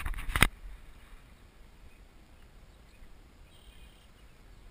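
A brief loud knock or rustle right at the start, then quiet open-air background with a faint bird chirp about three and a half seconds in.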